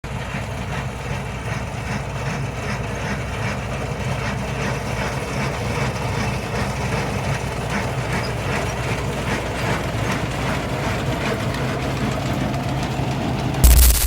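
Harvesting machine's engine running steadily, with a faint regular mechanical clatter over the hum. A sudden loud thump sounds just before the end.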